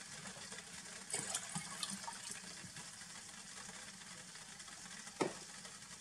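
Water poured into a stainless steel pot already holding vinegar, splashing from about a second in, over a steady low hum. A single sharp knock near the end is the loudest sound.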